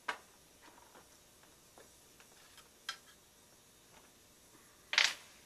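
A few scattered sharp clicks and taps of equipment being handled at a repair bench, the loudest about five seconds in, over a low room background.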